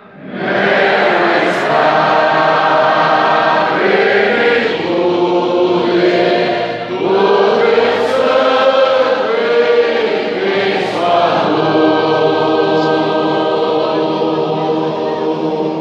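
Large congregation singing a hymn together in long held phrases, starting up just after a brief pause and breathing between phrases every few seconds.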